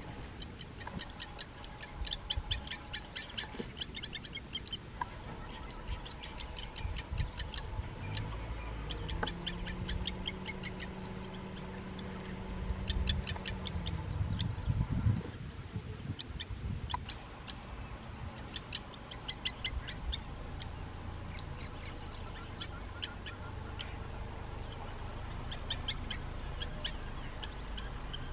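Blacksmith lapwings giving rapid runs of sharp, metallic 'tink-tink' alarm calls in repeated bouts, mobbing intruders near their nest. A low steady hum is heard for a few seconds in the middle.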